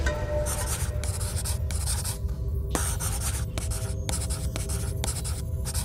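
Pen scratching on paper in a quick series of short writing strokes, with a few sharp ticks among them, over a low steady drone.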